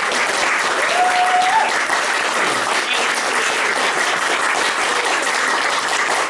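Audience applauding, a steady patter of clapping at the end of a poem.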